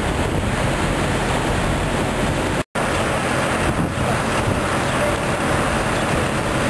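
Wind buffeting the camera's microphone over a steady low rumble, with the sound cutting out for a moment about two and a half seconds in.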